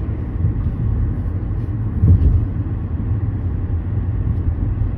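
Steady road and engine rumble heard from inside a moving car, with a brief louder thump about two seconds in.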